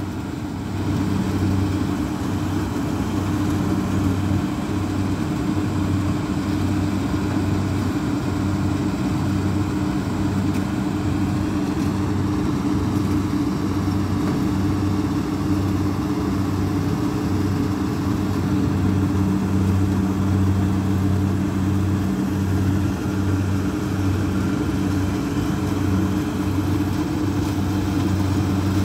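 Kubota DC-60 combine harvester running steadily while it cuts rice, a constant engine drone with a low hum that wavers slightly in strength. It is working through a patch where the rice is partly lodged (flattened).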